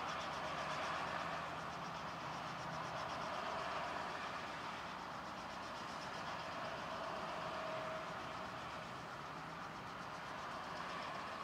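Light helicopter idling on the ground with its main rotor turning, a steady engine and rotor sound.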